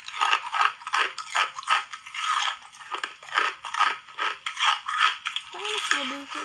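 Pieces of red, strawberry-shaped flavoured ice being bitten and chewed close to the microphone: a quick, even run of sharp crunches, about three a second.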